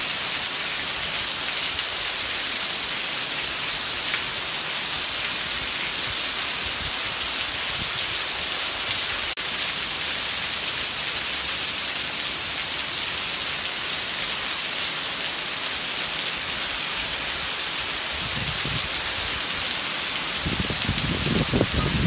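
Heavy rain falling steadily onto a paved patio and garden plants, with water streaming off a roof edge in a dense, even hiss. Near the end a low rumble swells up under the rain and grows louder.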